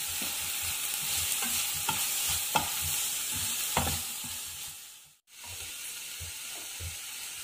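Chopped onion and tomato sizzling in a nonstick frying pan while a flat spatula stirs them, with a few sharp taps of the spatula against the pan. The sound cuts out briefly about five seconds in, then the sizzling and stirring go on more quietly.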